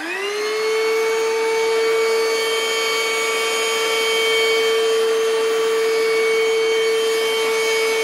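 National NH-VS1515 cordless stick vacuum cleaner running on its first speed. The motor whine rises as it spins up in the first half second, then holds steady.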